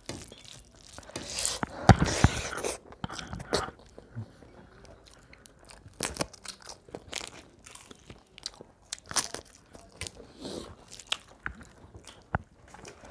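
Eating close to the microphone: biting, crunching and chewing. The crunches are densest and loudest over the first three seconds, then thin out to scattered quieter crunches and mouth clicks.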